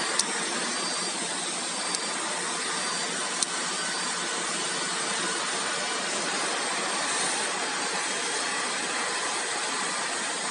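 Steady rushing hum of a flatbed CNC knife cutter's vacuum hold-down blower, running without change while the cutting head stands idle. Three short sharp clicks fall in the first few seconds.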